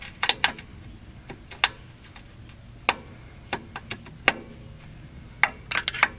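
Scattered sharp metallic clicks and taps from a screwdriver and bolt being worked against a Mercedes lower rear shock-absorber mount as the bolt hole is lined up, with a quick run of clicks near the end.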